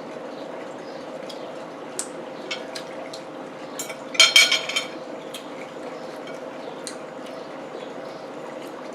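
Dishes and cutlery clinking at a table: scattered light clicks, with a louder cluster of clinks about four seconds in, over a steady low hum.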